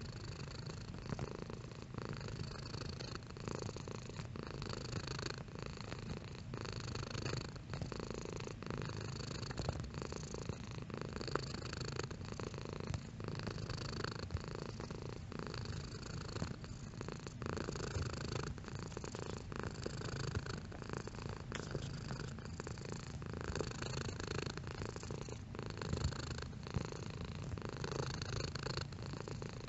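Domestic cat purring steadily and continuously, the purr swelling and fading in a regular rhythm about once a second.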